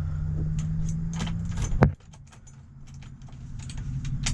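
Ignition keys jangling as the key is turned on a 1985 GMC 3500 to test its glow plug circuit, over a steady low hum that cuts off with a loud click a little under two seconds in. A quieter hum follows, with small metallic clicks and another sharp click at the end.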